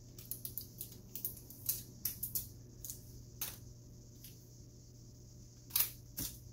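Paper and fabric rustling and crinkling under the fingers as hands pick at the tape on a pressed sublimation wrap. The crackles come in short, irregular bursts, with two sharper ones near the end, over a steady low hum.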